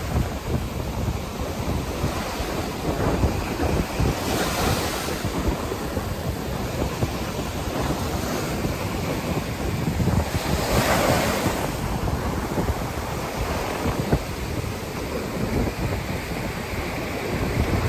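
Ocean surf breaking and washing up a beach, with two louder swells of wave noise about four seconds in and again around ten to eleven seconds in. Wind buffets the microphone with a low rumble.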